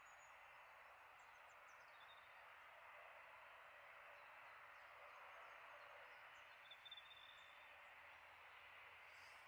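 Near silence: a faint, steady outdoor hiss with a few faint, short bird chirps.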